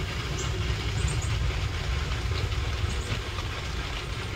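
Steady low rumble under a light hiss, with a few short high chirps now and then.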